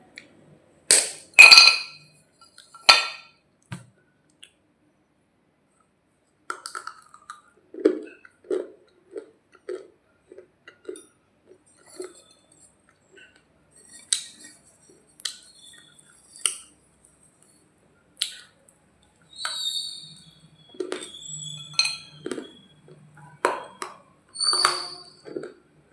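A hard, dry piece of baked clay cracking and crunching up close: a few loud, sharp snaps, then a run of softer, regular crunches as it is chewed, then more snaps.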